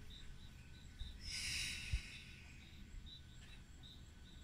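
A short breathy exhale about a second in, followed by a low thump, over faint, evenly repeating high chirps of an insect, about two or three a second.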